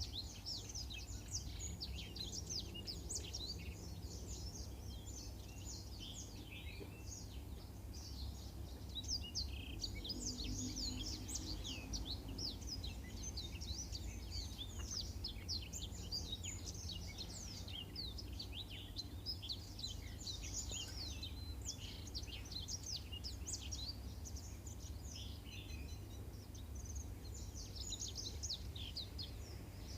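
Blackthroat (black-throated canary) singing a long, fast run of high chirps and trills with only brief pauses, over a low steady hum.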